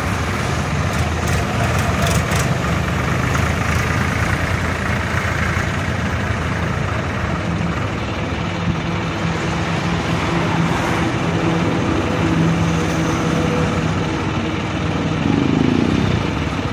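Truck-mounted crane's engine idling steadily while its boom holds the load.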